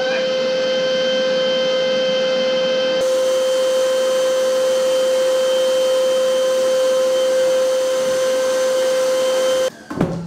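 Canister wet/dry vacuum cleaner running steadily with a high, even whine while its suction holds a plate against the ceiling, then cutting off suddenly near the end.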